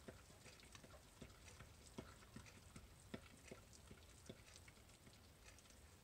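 Faint, irregular clicks and soft scraping of a spatula stirring thick, freshly cooked hot-process soap batter in a slow-cooker crock, stirring it down to let the steam and heat out. The clicks thin out after about four and a half seconds.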